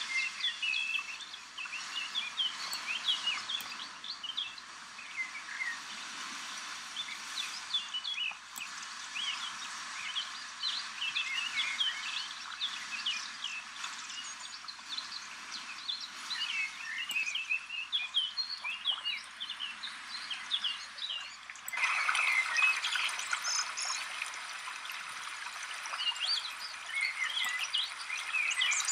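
Several small songbirds chirping and warbling in quick, overlapping calls over a steady hiss of background noise, which grows louder about 22 seconds in.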